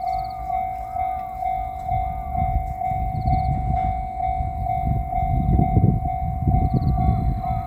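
Japanese level-crossing bell ringing its steady kan-kan at about two strokes a second while a JR Shikoku 8000 series electric express train passes. The train's rumble and wheel clatter swell from about two seconds in and are loudest near the end.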